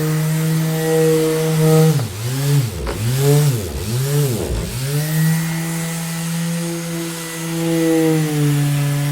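Electric orbital sander running with a steady motor whine. About two seconds in, its pitch drops sharply and climbs back three times in quick succession, then it runs steadily again.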